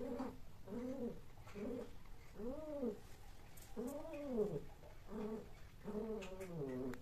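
Domestic cat giving a series of low, drawn-out calls, about eight in all: short ones mixed with longer calls that rise and fall in pitch.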